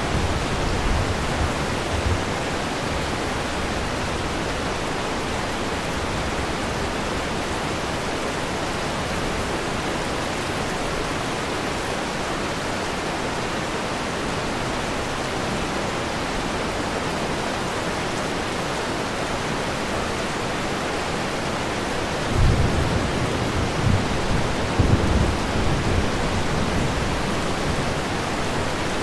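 Steady rain hiss. Late on, low rumbles of thunder come in over it.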